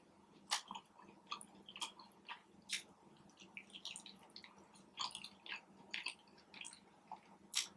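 Close-miked chewing and mouth sounds of someone eating: short wet clicks and smacks coming irregularly, two or three a second, with a louder one near the end.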